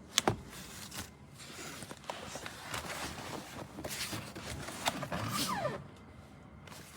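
Hard plastic parts of a child's booster seat being handled, with scattered clicks and knocks and rustling. A sharp double click just after the start is the loudest sound.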